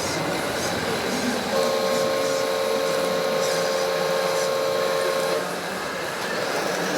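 An RC model truck's horn sounds one steady chord for about four seconds, starting about a second and a half in, over a steady whirr of small model motors.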